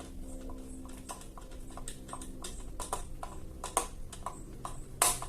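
Irregular clicks and light knocks of an 8 mm nut driver and fan parts being handled while screws are driven into the fan, with one sharper knock near the end.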